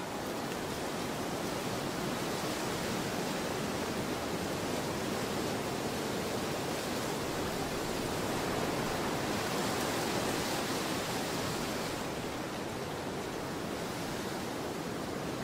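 Steady, even rushing noise with no distinct sounds in it, swelling slightly around the middle.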